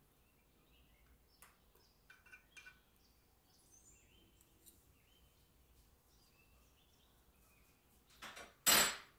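Faint birds chirping in the background, with a few light clicks of a metal fork against a glass baking dish about two seconds in. Near the end, a short, loud rush of noise in two parts.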